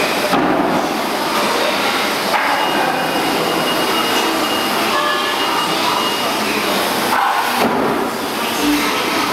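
H-1100 large horizontal band saw running with steady, loud mechanical noise. A faint high whine comes in for a few seconds in the middle.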